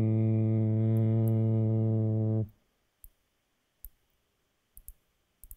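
A man humming one steady low note into a microphone for about two and a half seconds, stopping abruptly. A few faint clicks follow.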